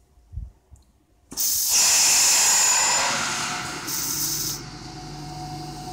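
Sudden loud hiss of air rushing into the vacuum emulsifying mixer's vessel as the perfume inlet is opened under vacuum, fading over a few seconds. A second short, high hiss comes near the middle, then a steady, quieter machine hum.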